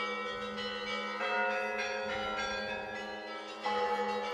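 Monastery church bells ringing: several bells of different pitch sound together and ring on, with fresh strikes a little after one second in and again near the end.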